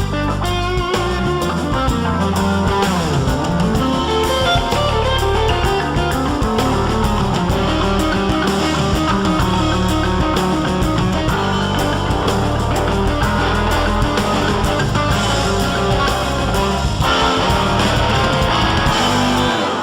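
Background music: guitar-led rock with bass, playing steadily and cutting off at the very end.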